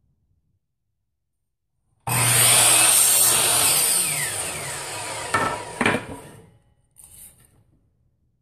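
Electric miter saw starting suddenly about two seconds in and cutting through a wooden furring strip, then its blade spinning down with a falling whine. Two sharp knocks come near the end of the spin-down.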